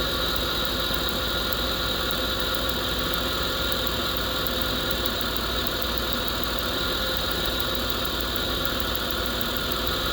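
Car engine idling with a misfire and a fast, regular ticking: a spark plug wire pushed partly off its plug by a coolant hose is arcing.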